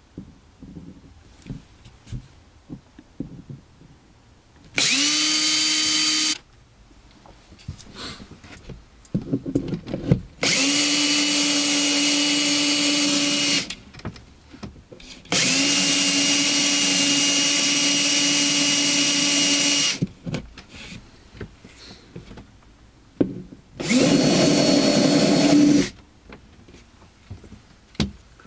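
Ridgid cordless drill boring through a laminated MDF panel with a Forstner bit, run in four bursts of about one and a half to five seconds. Each burst spins up to a steady whine, with small knocks and handling sounds between the bursts.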